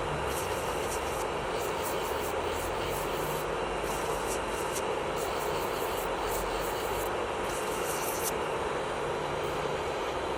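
Electric nail drill (e-file) running steadily, a constant motor whine with grinding noise.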